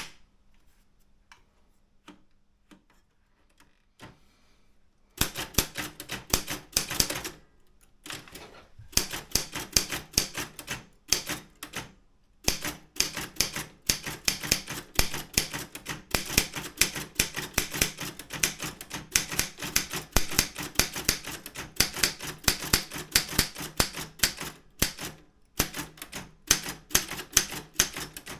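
Daro Optima M16 manual typewriter being typed on: a few faint clicks at first, then from about five seconds in a fast, steady run of key strikes, broken by a few brief pauses.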